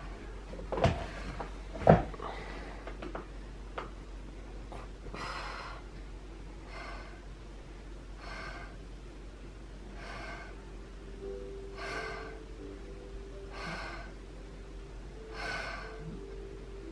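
A woman in labor breathing slowly and deeply through an open mouth, one breath roughly every two seconds: the slowed, controlled breathing she has been told to use to save her energy for pushing. Two sharp knocks come in the first two seconds.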